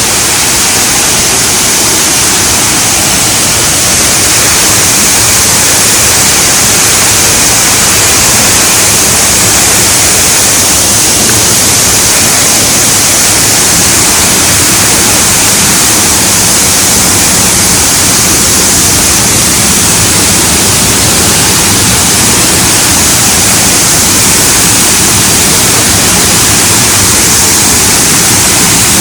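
Small waterfall pouring: a loud, steady rush of falling water.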